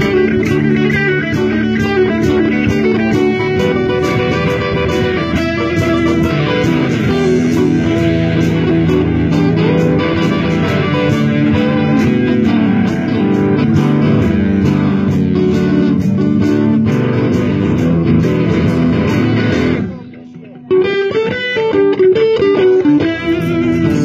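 Live rock band playing, with electric guitar over bass. About 20 seconds in, the music drops out for under a second, then comes back in with a repeating electric guitar riff.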